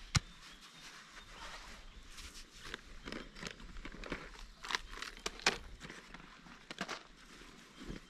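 A person settling on coarse river sand and handling camping gear: one sharp click right at the start, then rustling, crinkling and a run of light clicks and taps between about three and seven seconds in.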